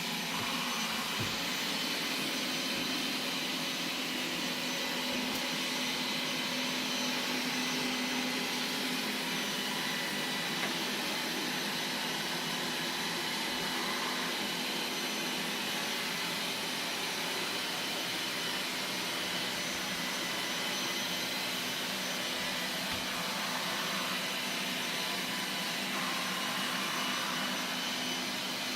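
Qihoo 360 S6 robot vacuum cleaner running: a steady, even whirring hum with a few constant tones.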